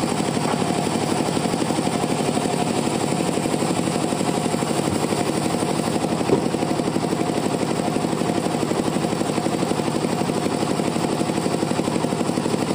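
Band sawmill running steadily with a rapid, even pulsing, cutting teak, and one sharp knock about six seconds in.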